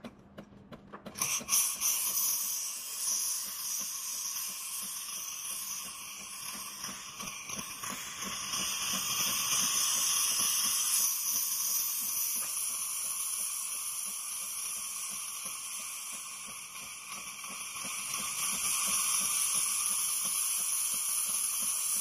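Espresso machine steam wand hissing as it blows steam into a glass of water. It starts about a second in, then swells and eases in loudness as it runs.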